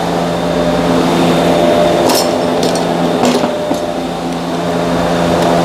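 A few light metallic clicks as the ignition coil's hold-down bolt and tools are handled, two of them a little over a second apart, over a steady background hum.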